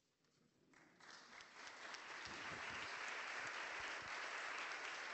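Audience applauding, with the panelists on stage joining in; the clapping starts about a second in, builds, then holds steady.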